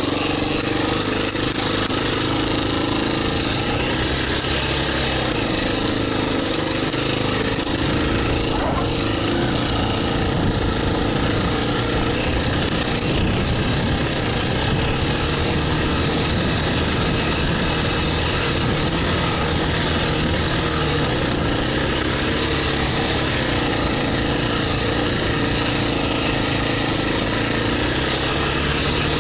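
KTM 350 EXC-F's single-cylinder four-stroke engine running while the dirt bike is ridden, its pitch stepping up and down with the throttle.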